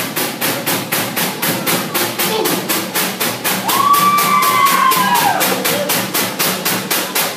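Fast, steady drumbeat for a Samoan group dance, about four to five sharp strikes a second. About halfway through, a long drawn-out shout rises and falls over the beat.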